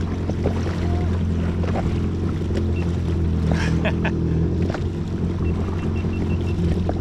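Yamaha WaveRunner FX HO jet ski engine idling with a steady low hum, under wind and water lapping at the hull. A few short clicks sound, and past the middle comes a quick run of about five faint high beeps.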